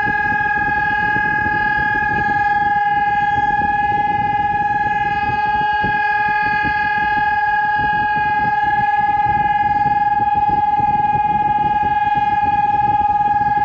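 Civil-defence siren sounding a steady continuous tone for a siren test: one unwavering pitch that neither rises nor falls, with a rough low rushing noise underneath.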